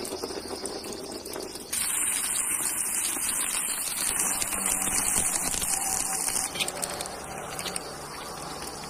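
Thermite rail-welding charge burning in its crucible and running into the mould, making a steady rushing hiss. The hiss jumps suddenly louder about two seconds in and eases back down near the two-thirds mark.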